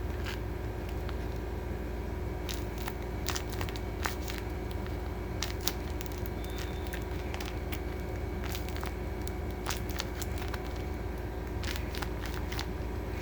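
Candy wrapper packaging crinkling and crackling in short, irregular bursts as it is handled and opened, over a steady low hum.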